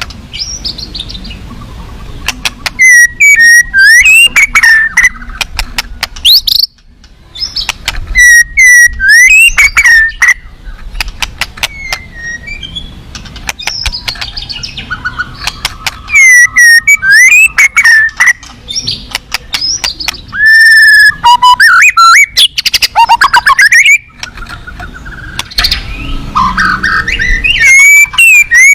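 White-rumped shama (murai batu) singing loud, varied bursts of whistles, rapid trills and sharp clicks, with short pauses between phrases. Its song is packed with mimicked calls of other birds (isian).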